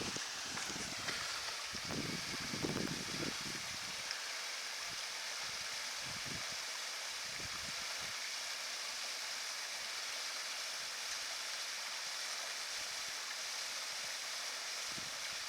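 Steady hiss of flowing water, with a few low thuds in the first four seconds.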